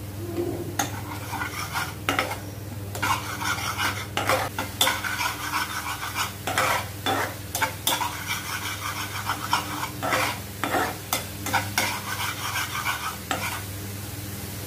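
Flat metal spatula stirring and scraping a thick onion-tomato masala around a frying pan: a long run of short, irregular scrapes against the pan, over a light sizzle of the frying paste. The spice powders just added are being mixed into the masala.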